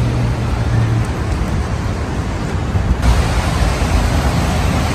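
Street ambience in light tropical rain: a steady hiss of passing traffic and rain, with a vehicle's low engine hum that stops about a second in.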